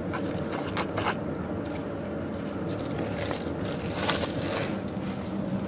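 A steady low mechanical hum, with scattered scratches and rustles about a second in and again around three to four and a half seconds in.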